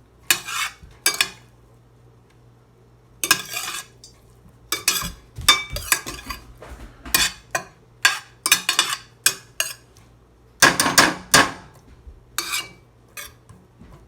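A utensil stirring food in a pan: irregular scrapes and clinks against the pan, with a brief pause about two seconds in.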